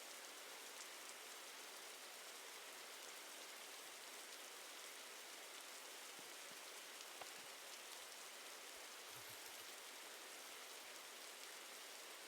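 Faint steady hiss with a few tiny ticks.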